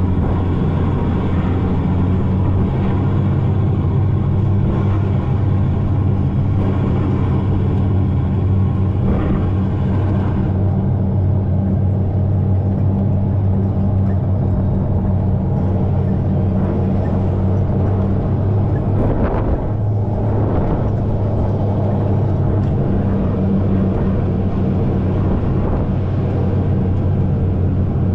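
Electric go-kart driving at speed: a steady low motor hum with wind and road rumble over the microphone, briefly unsettled about two-thirds of the way through.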